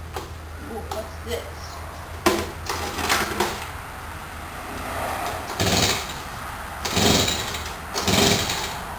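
Handheld gas leaf blower being pull-started: several short rasping pulls of the recoil starter cord, the last three about a second apart, with the engine not catching.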